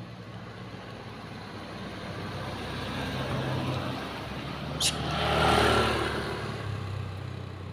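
A motor vehicle passing by: its engine hum and road noise grow louder to a peak about five and a half seconds in, then fade away. A brief high click comes just before the peak.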